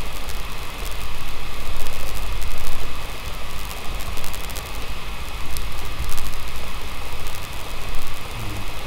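Steady background noise with no speech: an even hiss with a strong low rumble and a faint high steady tone, with a few faint clicks.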